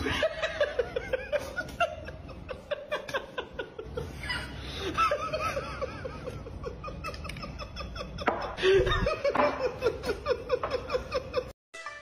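A person laughing in long runs of quick, repeated pulses, on and off for several seconds, stopping abruptly shortly before the end.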